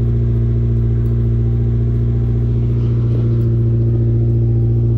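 Toyota MR2 Turbo's 3S-GTE turbocharged four-cylinder engine running steadily at a raised idle, heard from the driver's seat. After the ECU's leaking capacitors were replaced, the engine keeps running instead of cutting out after a few seconds.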